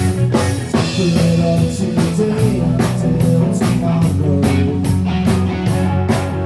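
Rock band playing an instrumental passage live: drum kit with cymbals keeping a steady beat of about two strikes a second under bass and guitar.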